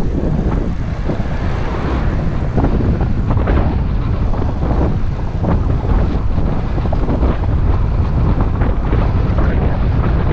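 Wind buffeting the microphone: a loud, constant low rumble with irregular gusts.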